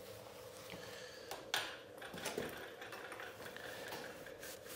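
Faint handling of engine main bearing shells: a light metal clink about a second and a half in, then a paper towel rubbing a shell clean.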